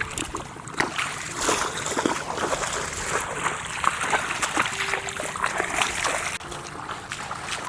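Water splashing over and over in irregular, uneven bursts.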